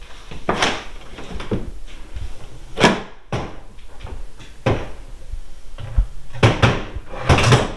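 Sharp clunks and knocks from a MotorGuide Xi3 bow-mount trolling motor's mount as it is swung up and down by a pull rope: a series of separate hard knocks several times in a few seconds, the loudest near the end.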